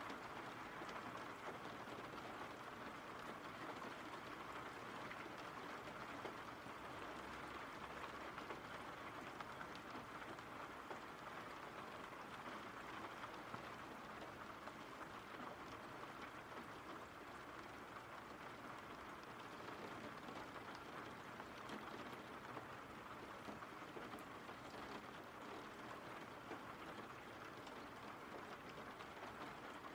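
Steady, faint rain falling, an even hiss without changes: the rain-sounds ambience laid under the narration.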